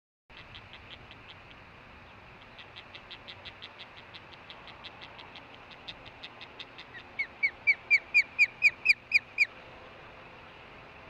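Osprey calling: a long series of short whistled chirps that start faint and quicken, then turn loud for about ten notes near the end before stopping. Steady hiss from the nest-cam microphone lies underneath.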